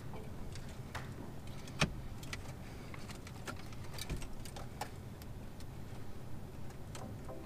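Light plastic clicks and taps as a chain of cable ties is pushed down through the opening behind a car's dashboard, with louder knocks about two and four seconds in.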